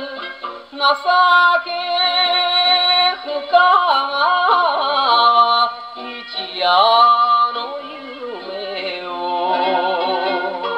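A 1958 78 rpm Japanese vocal record played acoustically on an HMV 102 portable wind-up gramophone: a man singing with wavering vibrato over the band accompaniment. The sound is thin and boxy, with no deep bass and no high treble.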